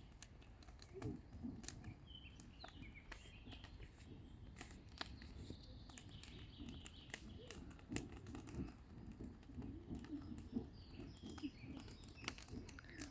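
Faint, scattered crackling and snapping of a campfire that has just been lit, with birds chirping now and then in the forest around it.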